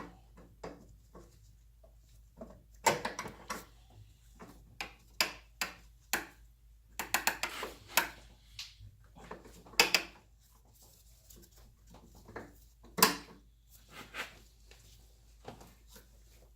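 Scattered knocks and clicks of hand tools on metal while a fuel filter is being fitted, with a few sharper hits among quieter taps.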